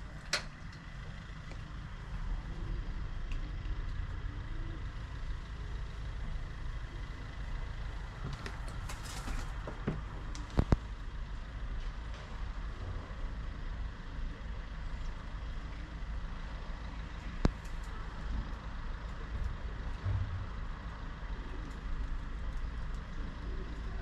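Steady low rumble of distant road traffic, with a few short sharp clicks, the loudest a little before halfway and about three quarters through.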